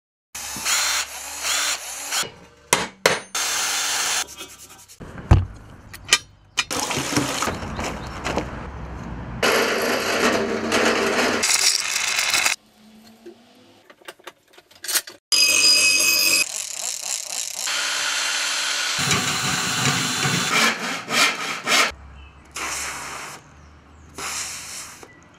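A rapid string of short handling and tool noises, rubbing and scraping, each snatch starting and stopping suddenly.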